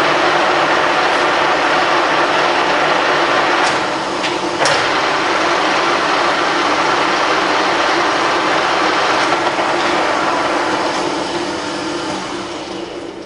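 Colchester Triumph 2000 lathe running steadily with its headstock gears engaged at 260 rpm. There is a sharp click about four and a half seconds in, and the machine runs down and fades near the end.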